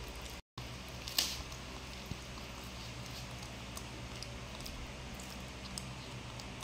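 Quiet room with a steady low hum and faint clicks and soft handling noises from hands peeling and eating boiled sweet potatoes. There is a split-second dropout about half a second in, then one sharper rustle about a second in.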